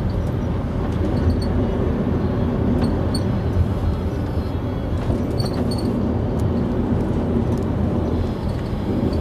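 Motor coach in motion, heard from inside the passenger cabin: a steady low rumble of engine and road noise.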